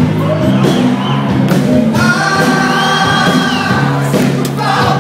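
Live rock band playing with a lead singer, with a long held note from about two seconds in.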